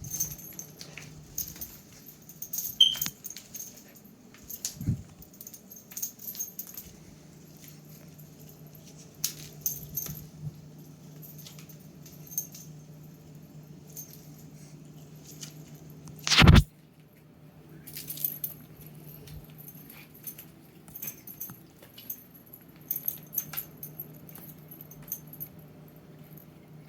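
A dog making small funny noises and scattered clicks and jingles while trying to catch bait, over a steady low hum. One loud thump comes a little past halfway.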